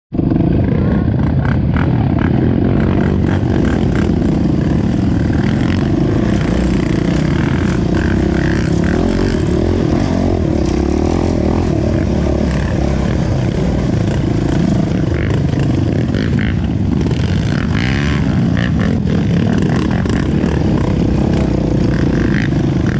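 Dirt bike engine running under throttle while riding a rough dirt trail, with rattles and knocks from the bumpy ground. The sound drops out for an instant at the very start.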